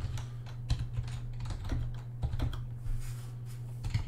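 Typing on a computer keyboard: a run of irregular keystroke clicks as a terminal command is entered, over a steady low hum.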